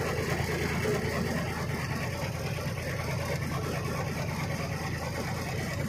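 Heavy truck's diesel engine running steadily at low speed, heard from inside the cab.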